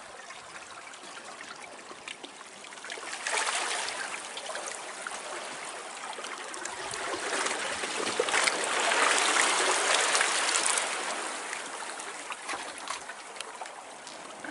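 Small waves washing and trickling among shoreline rocks and seaweed. The sound swells about three seconds in, then grows louder again for a couple of seconds past the middle before easing off.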